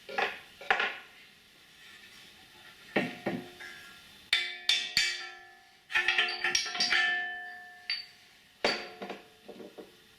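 Heavy steel parts clanking together as a homemade mini excavator bucket is fitted. There are a series of sharp knocks, the loudest about four and six seconds in, and each rings on for about a second like struck metal.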